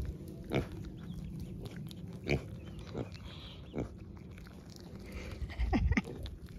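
Goat chewing and mouthing close to the microphone: a few short, sharp sounds spaced out, then several in quick succession near the end.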